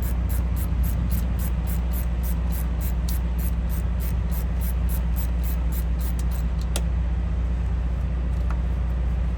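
Steady low rumble of an idling engine. Over it, faint, even ticking at about four a second stops with a sharp click about seven seconds in, and a smaller click follows near the end.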